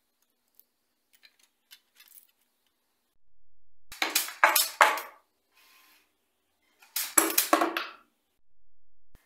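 Gun on a LEGO Technic model tank firing two quick volleys of small plastic projectiles about three seconds apart, each a rapid run of about five sharp plastic clacks lasting about a second.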